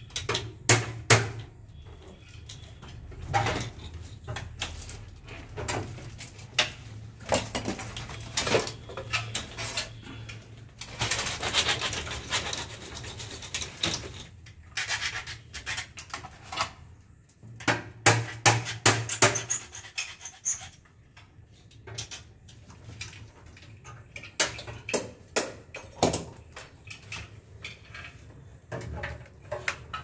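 Irregular clicks, taps and knocks of hand tools, wires and plastic parts being handled while wiring an electrical distribution panel, with a longer scraping sound about eleven seconds in and a quick cluster of louder knocks a little later.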